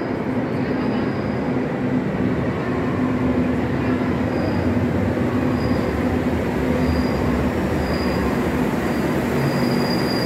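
Madrid Metro train arriving along an underground platform: a steady rumble of wheels and running gear with a low hum, and short high wheel squeals about once a second, drawing out into a longer squeal near the end.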